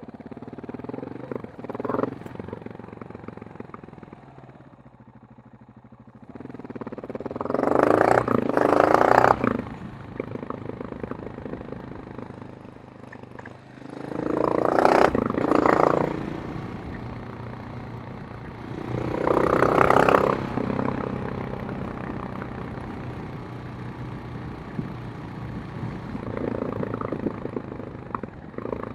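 KTM 690 Enduro R's single-cylinder engine and exhaust running low, with a short blip about two seconds in, then revving up hard three times and dropping back between.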